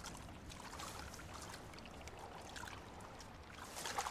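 Shallow water splashing and trickling as a polar bear wades and pushes its muzzle and paws through a lagoon, with small irregular splashes that grow louder near the end.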